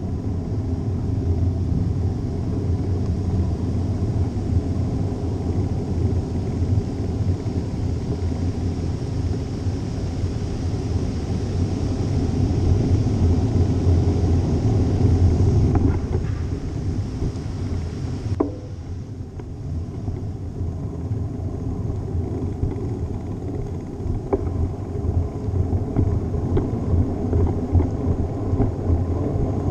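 Wind rushing over a GoPro's microphone and tyres rumbling on the road while cycling: a steady low rumble that swells for a few seconds about halfway through, then eases, with a few light clicks.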